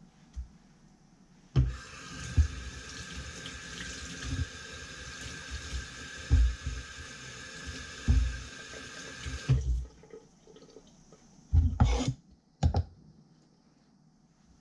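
Kitchen tap running into a sink. It comes on about one and a half seconds in and stops about nine and a half seconds in, with light knocks from things being handled under it. A couple of short clattering bumps follow near the end.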